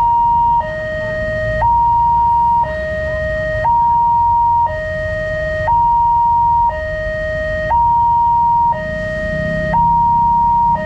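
Level-crossing warning alarm: an electronic two-tone signal alternating evenly between a higher and a lower note, each held about a second. A low rumble lies underneath.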